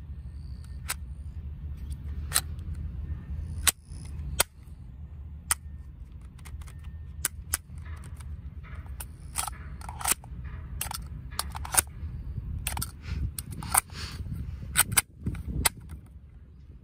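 Academy LH9 airsoft BB pistol being handled and fired: a string of sharp clicks and snaps, irregularly spaced, coming more often in the second half. Wind rumbles on the microphone throughout.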